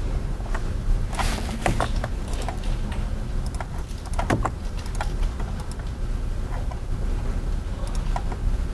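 Scattered clicks of computer keyboard typing and mouse clicks, with a small cluster about a second in and more around four to five seconds, over a steady low hum.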